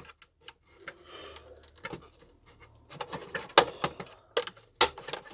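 Scattered sharp plastic clicks and knocks as a vacuum cleaner's wheels are handled and worked at to get them off the body, the loudest coming about three and a half to five seconds in.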